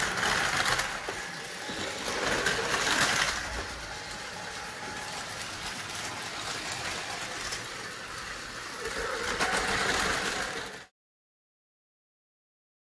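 Tomy Plarail battery toy trains, among them an E6 Komachi fitted with an Atomic Tuned2 motor, racing on plastic track: a steady whirring motor and wheel rattle. It swells louder as a train passes close, twice early on and again near ten seconds, then cuts off abruptly to silence.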